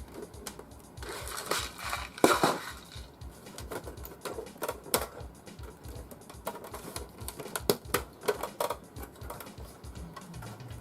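Screws and small metal parts clicking, knocking and scraping against a metal computer case as it is assembled by hand, in an irregular clatter with a louder knock about two seconds in.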